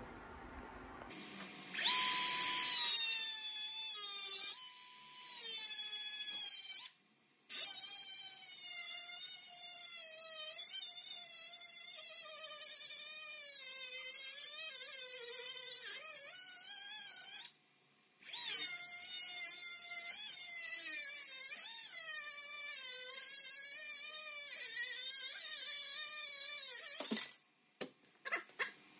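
Power cutting tool whining as it cuts through steel plates, its pitch sagging and wavering under load. It starts about two seconds in, breaks off suddenly a few times and stops near the end.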